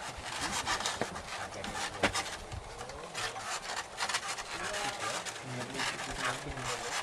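Creaking and rubbing of a loaded wooden shoulder pole and woven baskets carrying raw sulphur, with irregular scraping crackles and a couple of sharper knocks. Faint voices in the background.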